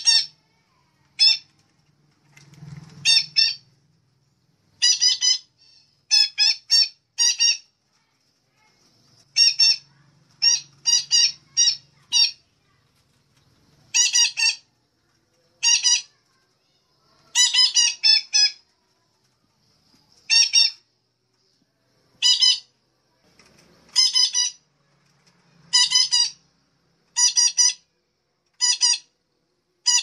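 Betet kelapa parrot (Tanygnathus) lure-call recording: short, harsh squawks repeated in groups of one to four, about one group every second or two.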